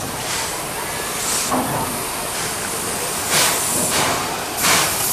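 Steam hissing from a C11 steam tank locomotive dressed as Thomas the Tank Engine. A steady hiss runs throughout, with louder spurts about a second in, between three and four seconds in, and again near the end.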